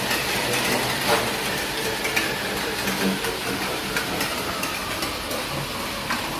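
Non-motorised dog slat treadmill running under a galloping Belgian Malinois: a steady mechanical clatter of the belt slats and rollers, with many faint ticks.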